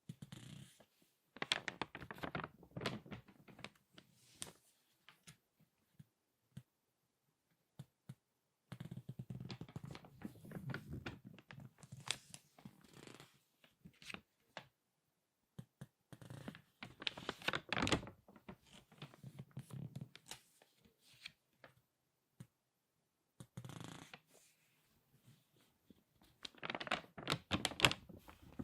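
Crinkly magazine pages being turned and squeezed by hand, crackling in bursts of a few seconds with short quiet pauses between.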